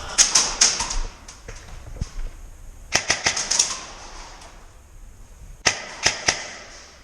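Airsoft guns firing three short bursts of rapid, sharp pops: one right at the start, one in the middle, and a shorter one near the end.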